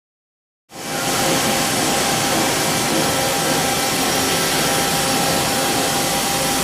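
After a brief dead silence, a Mori Seiki MT-1500SZ CNC lathe runs with a steady, even whir and a constant whine.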